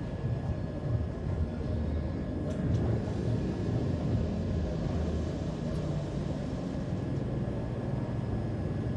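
Steady low background rumble with a faint steady high whine.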